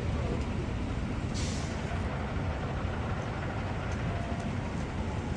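Steady low engine rumble of heavy vehicles idling, with a short air-brake hiss about a second and a half in.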